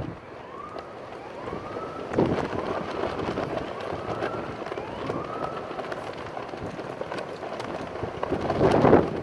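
Strong gusty wind buffeting the microphone, with a louder gust about two seconds in and another near the end. Through the first half, a faint distant siren wails in repeated rising sweeps, about one a second.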